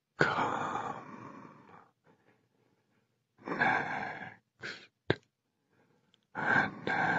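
Breathy voice sounds: three long sighing breaths, with a short breath and a sharp click about five seconds in.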